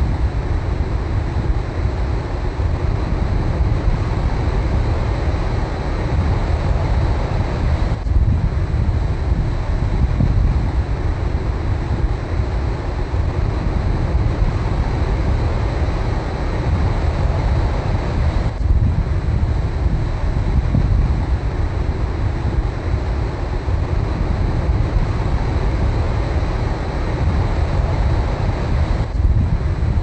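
Heavy surf breaking and washing in over a beach, a continuous deep rumble of waves and foam, with wind buffeting the microphone.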